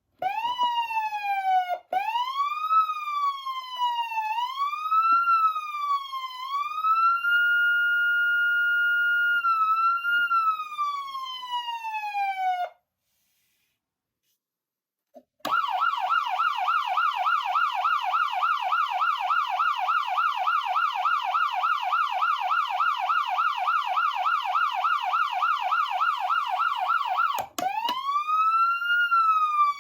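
GALLS GS-101 electronic siren amplifier sounding a wail that rises and falls several times, holds a steady high pitch, then falls away and stops. After about three seconds of silence it switches to a fast yelp of about four up-and-down sweeps a second, and near the end it starts a rising wail again.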